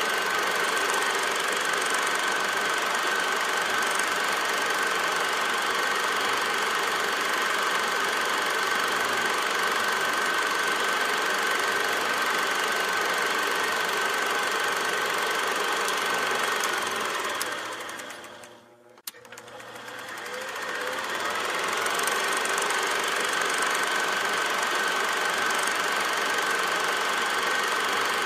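Steady mechanical clatter of a film projector running, with a constant whine through it. About two-thirds of the way in, it fades almost to nothing and then swells back up.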